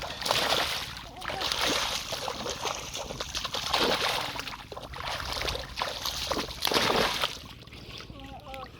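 River water splashing and sloshing in several loud bursts as someone churns through it catching fish by hand, quieter near the end.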